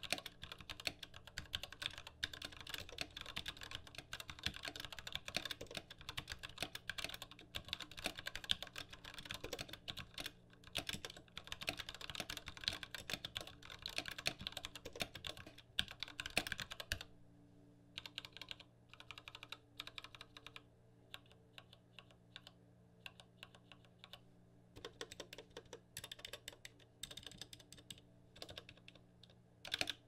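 Fast typing on a custom 60% mechanical keyboard with linear Gateron Yellow switches, PBT XDA keycaps and a wooden case. The keystrokes clatter densely, and about 17 seconds in they give way to slower, separate key presses.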